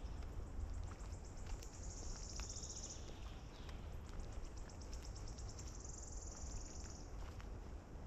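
A small songbird singing a high trill twice: each phrase starts as separate ticking notes that speed up into a shivering trill about a second long. A steady low rumble runs underneath.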